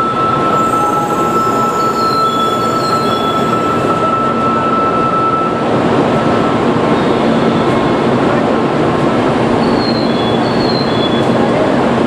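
Kyushu Shinkansen N700-series train pulling in along the platform and braking to a stop: a steady rumble and hiss of the moving train, with a thin high whine that cuts off about five and a half seconds in.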